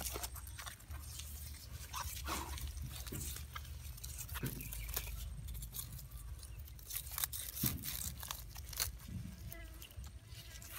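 Close handling noise of a mud crab being bound with a thin tie strip: crinkling and tearing of the strip and scattered clicks and crackles, over a steady low rumble.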